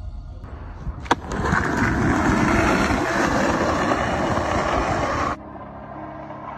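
Skateboard on an asphalt street: a sharp click about a second in, then loud rough rolling wheel noise that cuts off suddenly near the end, leaving a quieter steady hum.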